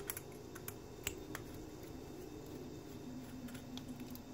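Faint, scattered clicks of a small hex driver turning and seating in a motor screw on a plastic RC transmission, over a low steady hum.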